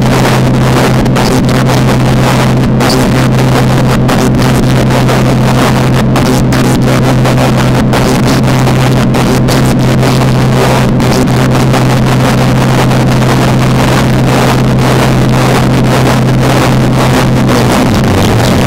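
Loud, steady amplified noise drone: a strong low hum under dense, crackling distortion, as in a live noise-music performance. Near the end the low hum drops in pitch.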